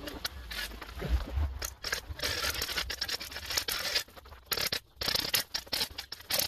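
Rapid scraping and scratching of a hand tool carving hard-packed snow, with many sharp scrapes and clicks, over a low rumble of wind on the microphone.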